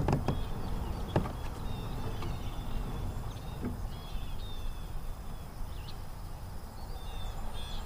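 Birds singing in short, repeated high chirps over a steady low rumble, with a few light knocks in the first few seconds.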